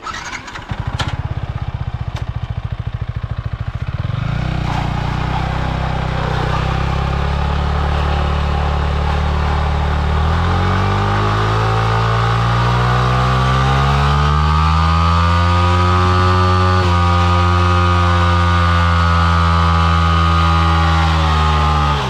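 Yamaha MT-15's single-cylinder engine starts and idles with a rapid pulse for a few seconds. It is then revved hard in a burnout attempt: the pitch climbs from about ten seconds in and is held high to the end, with the rear tyre spinning in place.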